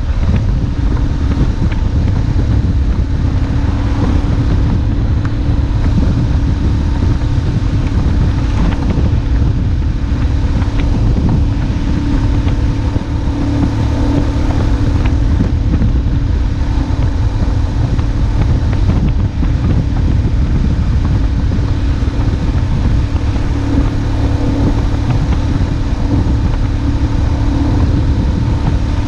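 BMW R1150GS boxer-twin engine running steadily while riding at an even speed, under heavy wind noise on the microphone.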